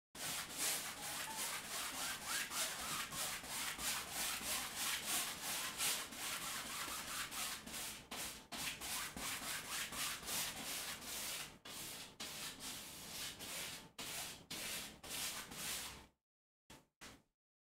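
Stiff-bristle paintbrush scrubbing paint onto a stretched canvas in rapid short strokes. It stops about a second before the end.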